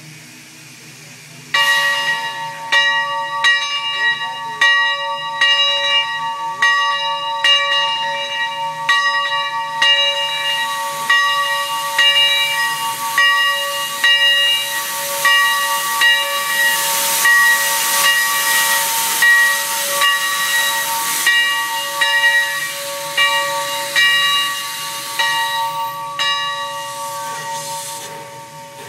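Steam whistle on the 4-4-0 steam locomotive Leviathan 63 sounding a chord of several tones for most of half a minute, pulsing about once a second. It starts suddenly a second and a half in and fades out near the end, over a steady hiss of escaping steam.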